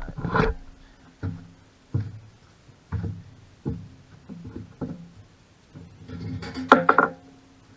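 Background acoustic guitar music, single plucked notes about once a second, with a louder strum or knock about seven seconds in.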